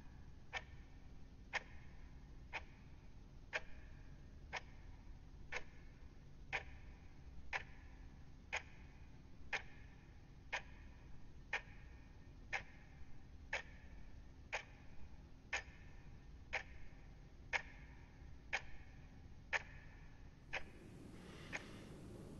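A clock ticking steadily, about once a second; the ticking stops near the end.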